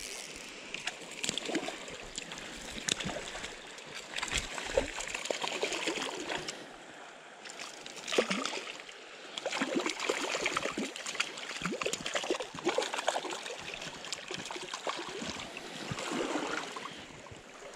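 Small stream running, with irregular splashing as a hooked trout is played and brought in.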